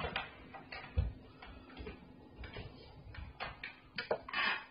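Scattered knocks and thuds inside a building: a heavy, deep thud about a second in, more knocks around three to four seconds, and a short rushing noise near the end, over a steady low hum.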